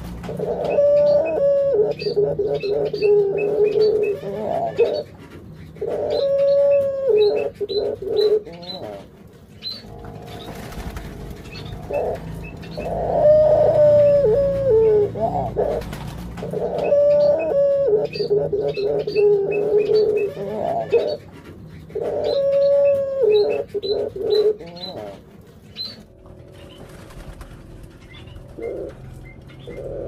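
Caged Barbary doves (ringneck doves) cooing in repeated bouts of a few seconds each, with pauses between them. Faint chirping of small birds sounds behind them.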